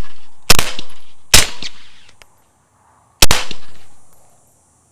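Three suppressed 9mm pistol shots from a Glock 17C fitted with a SilencerCo Omega 9K suppressor, fired at an uneven pace: two about a second apart, then a third about two seconds later. Each is a sharp report that dies away quickly.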